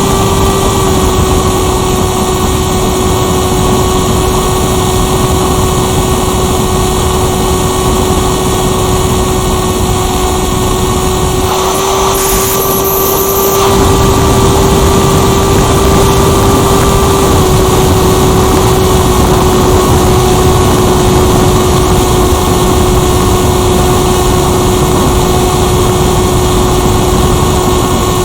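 Electric motor and propeller of a Firstar 2000 RC motor glider running steadily, heard from a camera on board: a constant whine over rushing air noise. About twelve seconds in, the low rumble briefly thins for a second or two, then the sound returns a little louder.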